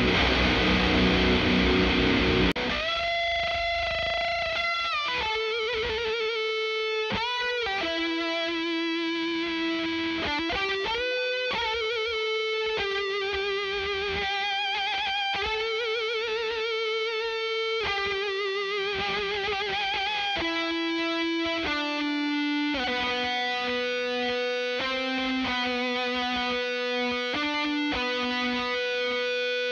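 Distorted electric guitar through a Blackstar Series One 100 6L6 valve head into an 8-ohm Celestion Vintage 30, close-miked. A dense quad-tracked rhythm part cuts off about two and a half seconds in. A single-note lead solo follows, with long sustained notes, wide vibrato and bends.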